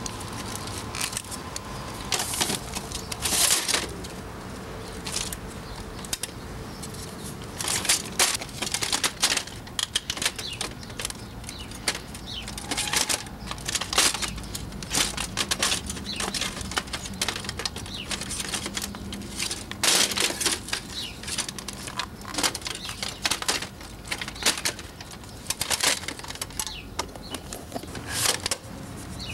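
Plastic parts of a Canon copier being handled and pulled by hand: irregular clicks, snaps and rattles of the cartridge and its housing, over a faint steady low hum.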